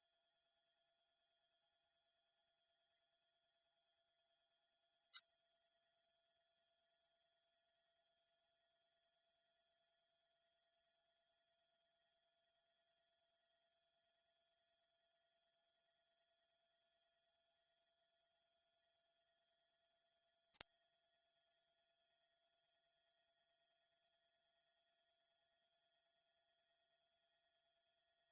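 Dog whistle sound effect: one steady, very high-pitched pure tone held without a break, with a faint click about five seconds in and another about twenty seconds in.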